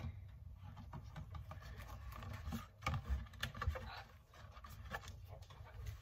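Cardboard cake box being opened by hand: soft rustling and scraping of the flaps, with a few light knocks around the middle.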